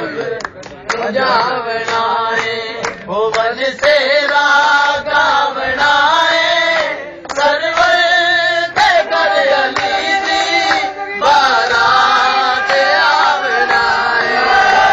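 Male voices singing a qasida, a devotional praise poem, to a chanting melody, with scattered sharp hand claps.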